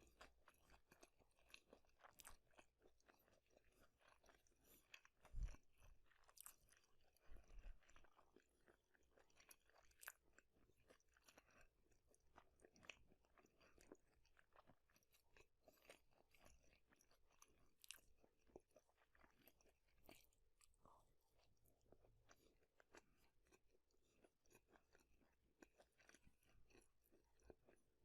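Faint, close-miked chewing of crunchy food, a steady run of small irregular crunches and mouth clicks, with a couple of stronger bites a few seconds in.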